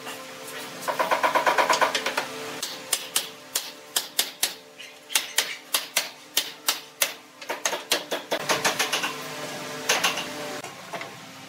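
Hammer knocking on a wooden frame: a quick run of light taps about a second in, then single blows two or three a second, and another quick run later.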